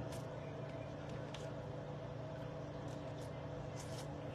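A steady machine hum runs underneath a few short, sharp crackles and clicks from hands peeling and eating boiled crawfish.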